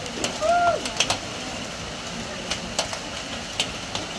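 Heavy rain falling on a corrugated metal roof: a steady hiss broken by sharp, irregular taps of large drops striking the sheeting. A single short tonal call sounds about half a second in.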